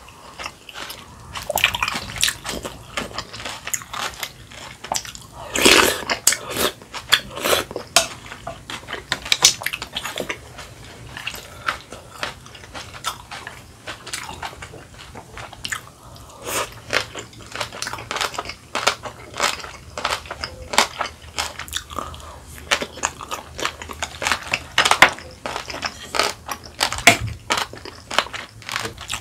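A person chewing and crunching kimchi and sipping sundaeguk broth from a spoon: a dense, irregular run of crisp crunches and wet mouth sounds.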